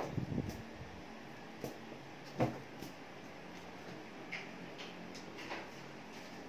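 Scattered knocks and thumps as a kitten pounces and scrabbles on a plastic storage box lid while playing with a wand toy. There is a flurry of soft thumps right at the start and a sharper knock about two and a half seconds in, with lighter taps after.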